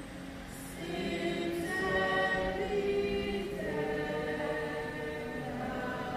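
Choir singing slowly, several voices holding long notes that change pitch in steps.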